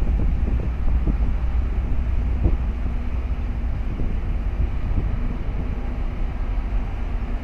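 Low steady rumble from a passing container ship's engines, mixed with wind buffeting the microphone. A faint steady hum comes in about halfway through.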